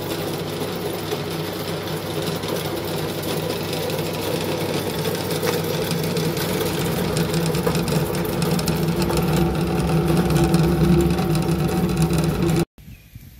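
Small animal-feed pellet mill running under load as it presses pig feed into pellets, a steady droning hum that grows louder over the last few seconds and then cuts off suddenly near the end.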